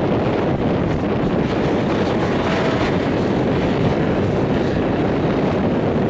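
Steady wind rumble on the microphone, with a dune buggy's engine running under it as it climbs a steep sand dune.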